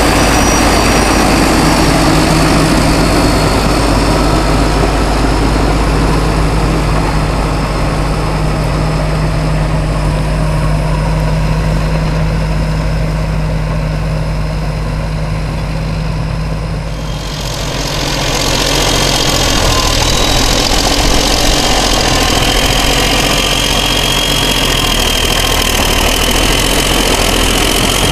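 Caterpillar D9 crawler tractor's diesel engine running hard under load as it tows a pull-type scraper that is cutting and filling with dirt. The sound turns brighter and harsher a little past halfway.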